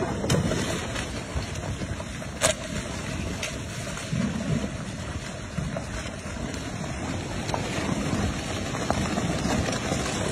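A flash-flood mudflow rushing past, heard as a steady low rushing noise with wind buffeting the microphone. A single sharp knock comes about two and a half seconds in.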